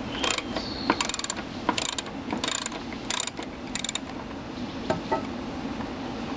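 Ratchet wrench clicking in six short runs, one on each back-stroke, as a bolt is turned, followed by a couple of knocks about five seconds in.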